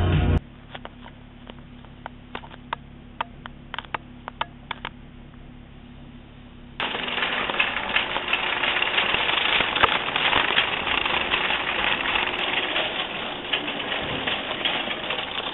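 A quiet car interior with a steady low hum and scattered light clicks. About seven seconds in it cuts to loud, dense rustling and clatter from a handheld camera jostled while walking through a store.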